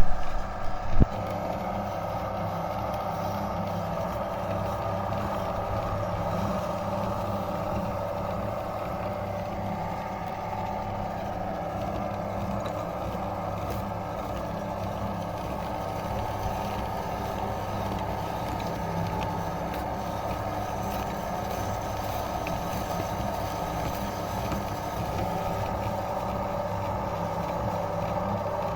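Electric meat grinder running steadily, grinding Oreo cookies. It is louder and uneven for the first second, ending in a sharp knock, then settles into an even motor drone.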